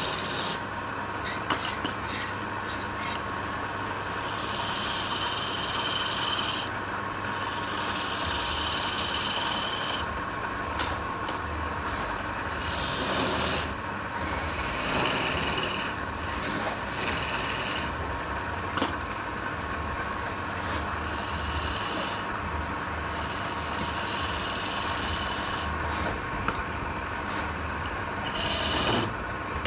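Wood being worked by hand with an abrasive: steady rubbing strokes that come and go irregularly.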